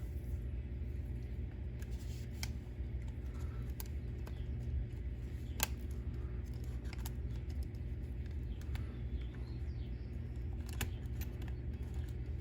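Scattered small clicks and taps of plastic and metal parts being handled and pushed together while refitting the rear suspension of a Wltoys 144001 RC car, over a steady low hum.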